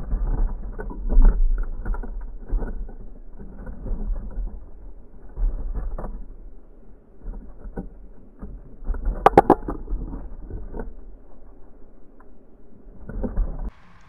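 Sparrows and a downy woodpecker pecking and scrabbling in black sunflower seed on a wooden feeder tray: irregular clicks, taps and seed rustling over a low rumble, with a brief cluster of sharper clicks about nine seconds in.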